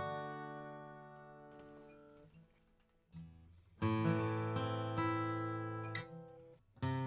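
1965 Epiphone Texan FT-79N dreadnought acoustic guitar with a bone saddle, strummed with a thin pick. A chord is left to ring and fade, then fresh strums come about four seconds in and again near the end.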